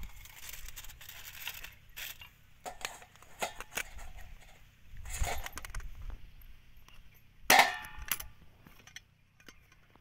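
Aluminium foil crinkling as it is peeled off a steel container, then clicks and knocks of stainless steel tiffin latches and lids being handled. About seven and a half seconds in there is one loud, ringing metal clang.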